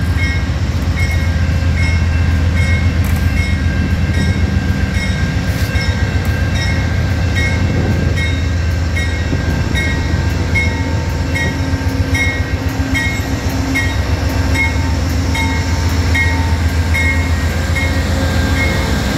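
GE P42DC diesel locomotive pulling away at close range, its engine running with a steady low throb. A bell dings about twice a second throughout.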